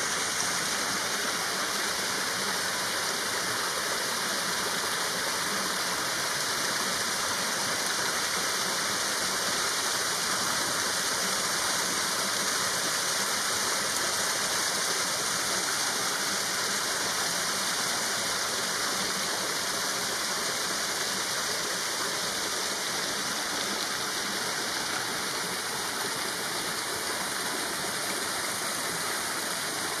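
Small waterfall spilling over rock ledges into a creek pool: a steady, even rush of falling water.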